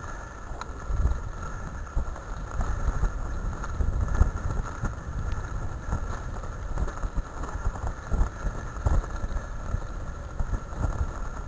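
A dog-team rig rolling fast over a gravel track behind running huskies: a continuous low rumble of wheels on gravel, with irregular knocks and rattles as it jolts over the stones.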